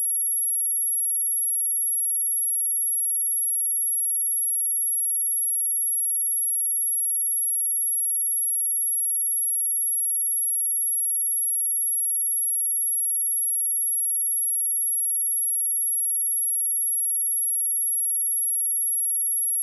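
A single steady high-pitched sine tone at 11241 Hz, held without change: a speaker test tone, also used to clear water and dust from a speaker.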